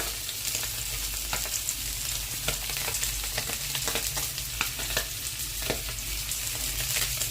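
Whole silver pomfret frying in hot oil: a steady sizzle with frequent small crackles and pops.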